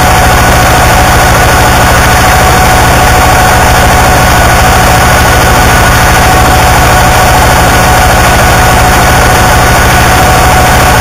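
Harsh noise music: a very loud, unchanging wall of distorted noise over a fast, rumbling low throb, with a few steady whining tones running through it.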